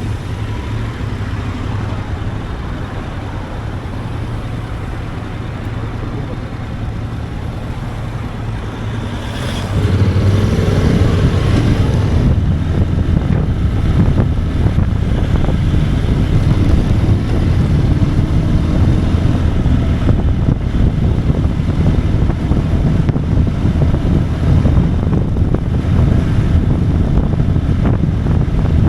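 Motorcycle engine running steadily while riding, with road and wind noise. It turns suddenly louder about ten seconds in and stays louder.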